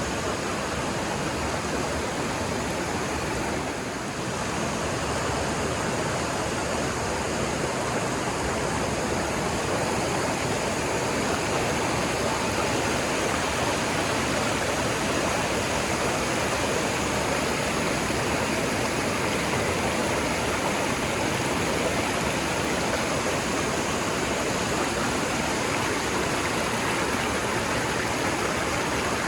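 Steady rushing of running water, with a brief dip in level about four seconds in.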